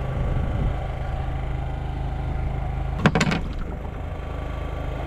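An engine idles with a steady low hum, and about three seconds in comes a short burst of splashing as a hooked fish thrashes at the surface beside the boat.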